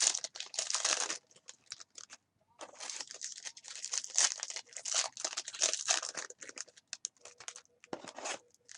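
Plastic trading-card pack wrappers crinkling and tearing as packs are handled and ripped open, in two stretches with a short lull a little over a second in and only scattered crackles near the end.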